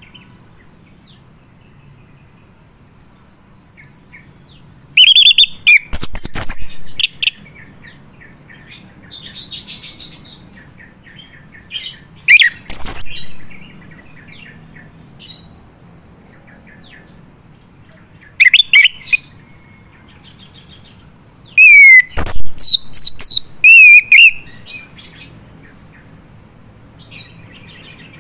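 Male orange-headed thrush singing in loud bursts of quick, varied sliding whistles and chirps, five phrases with pauses between them.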